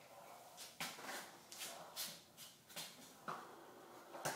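A RipStik caster board being ridden, giving a scattered series of short, sharp clicks and taps, about eight in four seconds.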